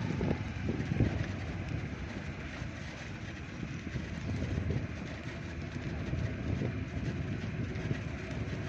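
Train running on the track: a steady rumble with uneven low knocks from the wheels and cars.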